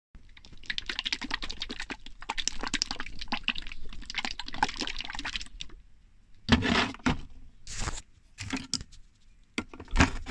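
A small metal tin of brake caliper paint shaken hard by hand for about five seconds, with a fast rattling, sloshing clatter. After that come several separate sharp knocks and scrapes of metal on the tin as its lid is worked with a tool.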